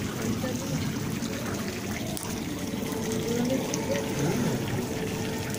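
Steady trickle of water in a shallow koi pool, with faint background voices.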